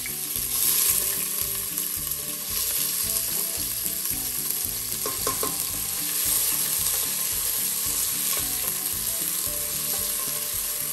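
Chopped onions sizzling in hot olive oil in a stainless steel pot, a steady frying hiss, while a wooden spoon stirs them, with a few clicks of the spoon against the pot about five seconds in.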